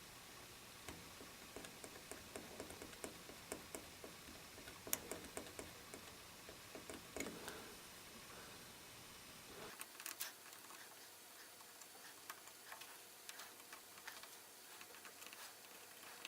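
Faint, irregular ticking and scratching of a metal dental pick scraping leftover solder-mask paint off the copper pads of a home-made circuit board.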